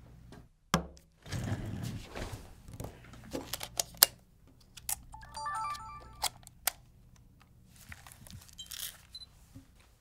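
Sony 4K camcorder being handled and set up: clicks and knocks as parts are fitted and the flip-out screen is worked, with a loud knock about four seconds in. A short run of quick electronic beeps at several pitches comes about five seconds in.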